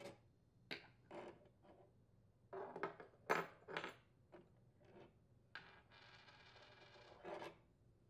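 Scattered light clinks, rubs and scrapes of metal ice-crusher blades and plastic spacers being slid off a refrigerator ice auger's threaded shaft and set down, with a brief scraping rub near the end.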